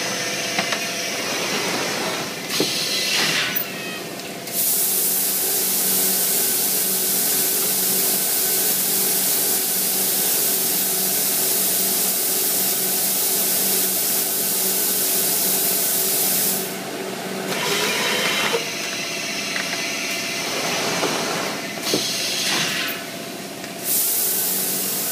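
Blister vacuum forming machine running with a steady mechanical hum and long stretches of loud air hiss. The hiss starts a few seconds in, lasts about twelve seconds, drops away into a quieter spell with a few clanks, and returns near the end.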